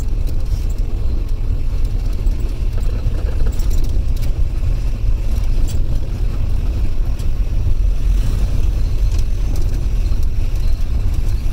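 Steady low rumble of a taxi's engine and tyres heard from inside the cabin while driving, with a few light clicks over it.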